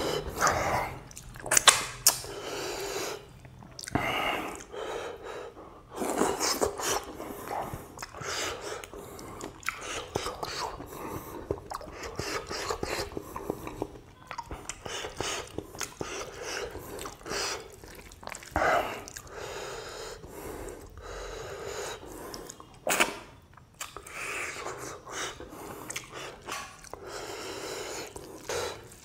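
A person eating by hand: wet chewing and mouth clicks from mouthfuls of rice and pork curry, with soft sounds of fingers mixing rice on a wooden board.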